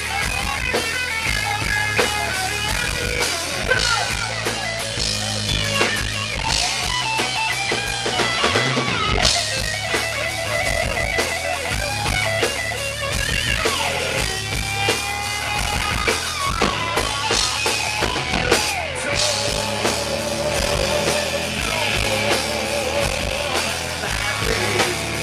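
Live rock band playing: distorted electric guitar and drum kit with a singer, heard from close in the crowd.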